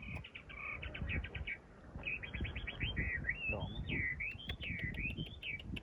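Small songbirds chirping in quick runs of repeated notes, with sliding whistled notes midway. Scattered low knocks and rumble sit underneath.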